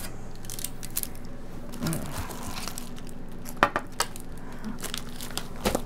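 Metal freeze-dryer trays clinking and scraping as they are slid out of the rack and handled, with a few sharp knocks spread through and some rustling and crinkling of bags.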